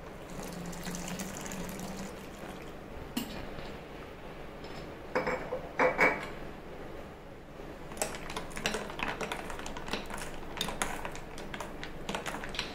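Cold water pouring into a glass bowl of blended mango drink with ice cubes for the first two seconds or so. Later a spoon stirs the drink, knocking and clinking against the glass bowl and the ice.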